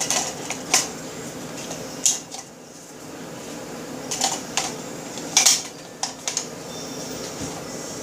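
Sharp metallic clicks and clacks, about eight spread irregularly, from a Smith & Wesson M&P FPC carbine being handled as its magazines are put back in.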